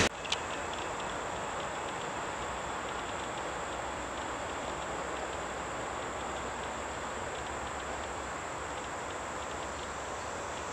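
Insects trilling outdoors: a steady high-pitched buzz with faint rapid chirps over a faint low rumble. A single short click sounds just after the start.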